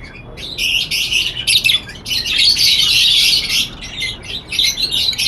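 A flock of caged African lovebirds chattering: many rapid, shrill chirps and calls overlapping, starting about half a second in, with a brief lull around two seconds in.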